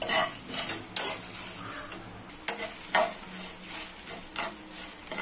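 Steel spoon stirring and scraping coriander seeds, chana dal, fenugreek and dried red chillies as they roast in a nonstick pan, with the seeds rattling and a sharp click of the spoon against the pan every second or so.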